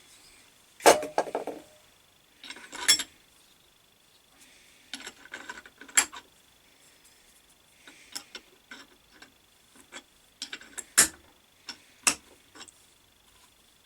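Irregular clusters of short metallic clinks, taps and scrapes as the parts of a lathe fixed steady are handled and its threads cleaned out. The sharpest knocks come about a second in and again near the end.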